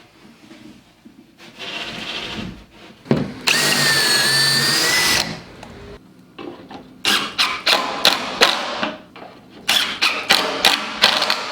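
Cordless drill-driver running for about two seconds with a steady whine, driving screws during cabinet assembly, followed by a quick run of sharp clicks and taps.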